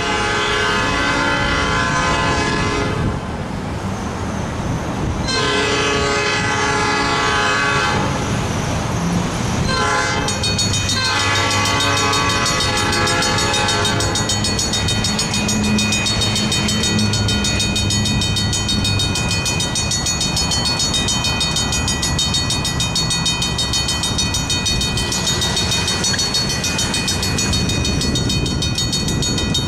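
Locomotive air horn sounding a series of long blasts for the grade crossing as the train approaches, followed by the crossing's warning bell ringing steadily over the low rumble of the train.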